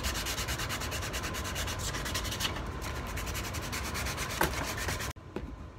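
Steady rough rubbing on wood with a fast, even pulse of about eight or nine strokes a second. It cuts off abruptly about five seconds in.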